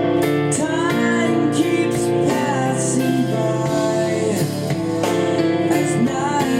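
A song with a singing voice and guitar, played back through Technics SB-F1 mini monitor speakers, with little deep bass.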